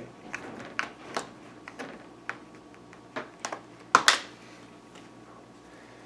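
Clips of a Dell Inspiron 15-5593's bottom cover snapping loose as a plastic card is worked along the seam: irregular sharp clicks, the loudest pair about four seconds in.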